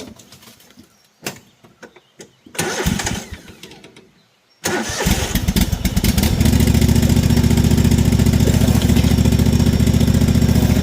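Cub Cadet LT1050 riding mower engine being started: a brief stretch of cranking, then the engine catches about five seconds in and runs steadily with an even beat. A few handling clicks come before it.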